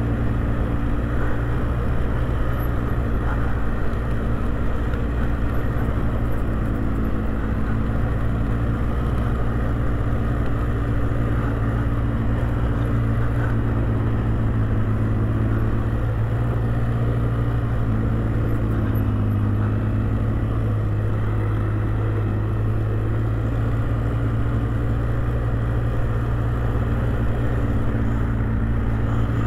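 ATV engine running steadily under way, its pitch rising and falling a little with the throttle.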